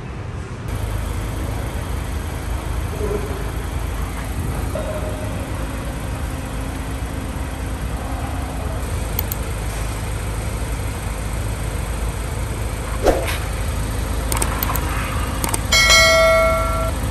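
Subscribe-button sound effect: a few quick mouse clicks, then a bright bell-like ding that rings on near the end, over a steady low background rumble.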